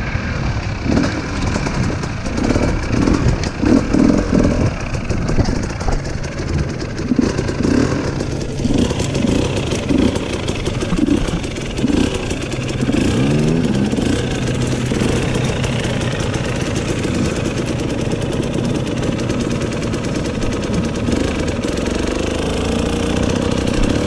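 Dirt bike engine ridden along a trail, revving up and falling back over and over for about the first half, with one long rising rev about halfway through, then running at a steady, even note.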